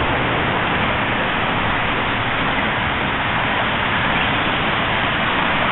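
Steady traffic noise from the highway bridge: an even, continuous rush of tyres and engines with no distinct events.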